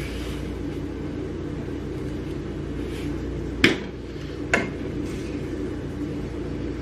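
Steady low hum in a kitchen during cooking, with two sharp clicks of a utensil against a pan about a second apart near the middle.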